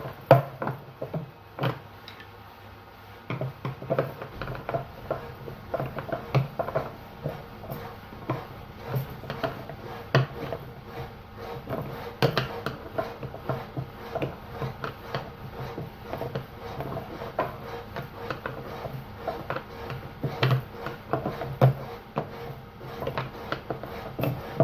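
Repeated irregular knocks, taps and scraping of tools on the metal drum shaft of a Zanussi washing machine as it is worked out of its bearing, a little at a time from alternate sides because the shaft is partly seized.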